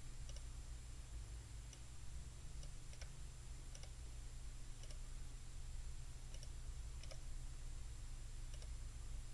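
Faint computer mouse clicks, about ten at irregular intervals, over a steady low hum and hiss.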